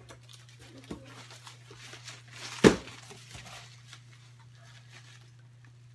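Cardboard box and packing material rustling and crinkling as they are handled and unwrapped, with a few small clicks and one sharp knock a little before the middle.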